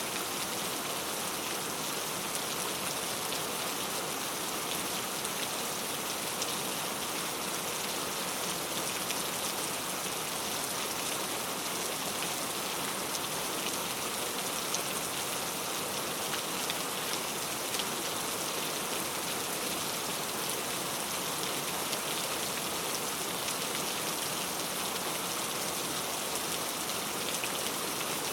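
Heavy rain falling steadily: a dense, even hiss of many drops hitting a surface, with no let-up.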